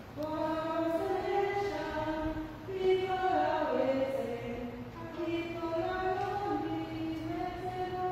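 A woman's voice singing a slow hymn unaccompanied, in long held notes that glide from one pitch to the next.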